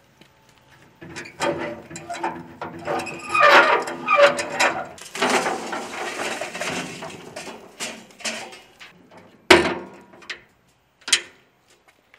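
Lit charcoal tipped out of a metal chimney starter onto a steel grill grate: a run of rattling and scraping as the coals tumble out, then two sharp metal knocks near the end.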